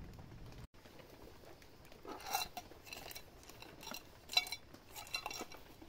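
Several light metallic clinks and taps, scattered a second or so apart, as of metal gear being handled.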